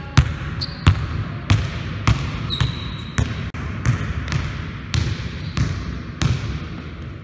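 A basketball dribbled on a hardwood gym floor, bouncing steadily about every 0.6 seconds, each bounce echoing briefly in the hall.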